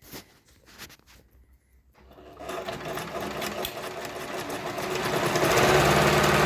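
A few light clicks, then a Pfaff 204 sewing machine starts sewing a zigzag stitch at width setting 2 about two seconds in, picking up speed and getting louder near the end.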